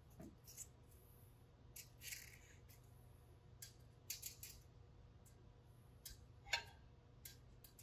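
Faint, scattered clicks and a short scrape as a tape measure and clamp are handled against a steel stand rod, with one sharper click near the end, over a low steady hum.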